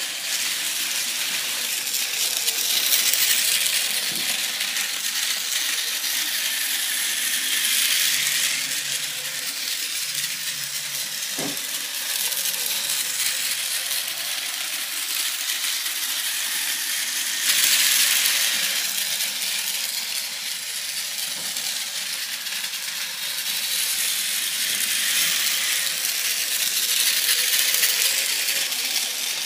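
Battery-powered Plarail 200 Series Shinkansen toy train running on plastic track: a continuous rattling clatter of its motor gearbox and plastic wheels on the rails, growing louder and softer several times as it circles.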